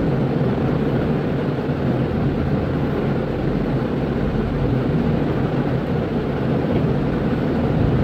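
Steady rumbling background noise with a faint low hum, even in level throughout, with no distinct hammer strikes.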